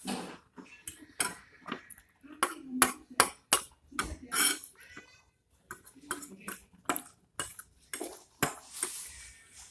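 Cutlery clinking and scraping against a plate or bowl while eating noodles: a quick run of sharp clinks, about a dozen or more, with short mouth sounds in between.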